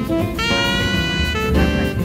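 Background music: an upbeat jazz instrumental with a horn melody in long held notes over a steady beat.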